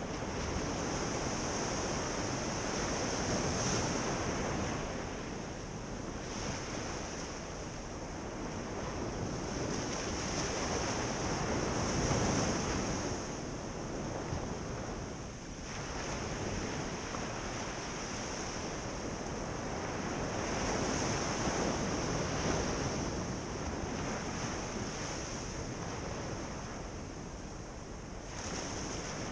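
Ocean surf breaking and washing up a beach: a steady rushing wash that swells louder about three times as waves come in, easing between them.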